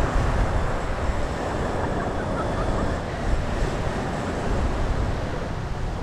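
Beach ambience: wind rumbling on the microphone over the steady wash of gentle surf, with faint voices of beachgoers.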